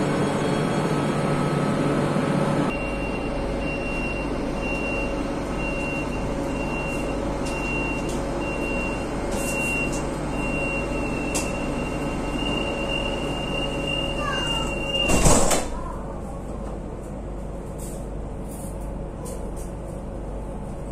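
Madrid Metro Line 9 train's door-closing warning: a high beep repeating about once a second, quickening into a steady tone, then the sliding doors shut with a loud thump about fifteen seconds in. A low steady hum of the train's equipment runs underneath, and a louder rush drops away suddenly about three seconds in, as the beeping begins.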